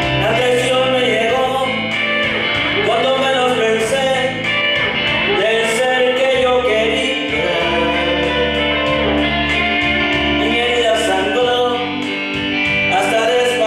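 A man singing a song into a handheld microphone over instrumental accompaniment with a steady beat.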